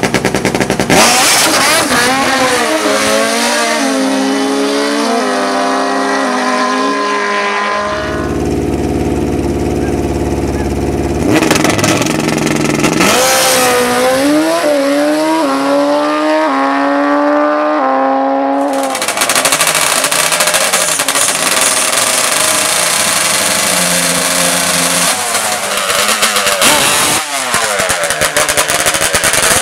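Drag-racing engines accelerating hard, pitch climbing and dropping back at each upshift, in two full-throttle runs with a steadier low engine note between them. From about two-thirds of the way in, a denser, rougher engine noise takes over.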